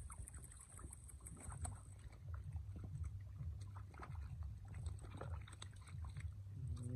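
Hands splashing and scooping through shallow muddy water, an irregular run of small wet splashes over a low steady rumble.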